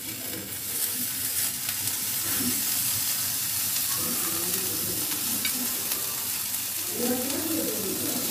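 A steady hiss, like sizzling or running water, heard under faint background voices.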